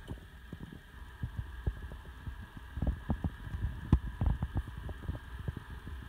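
Eufy RoboVac 30C robot vacuum running as it drives across a wooden floor: a steady motor hum under irregular low thumps and knocks, the loudest about four seconds in.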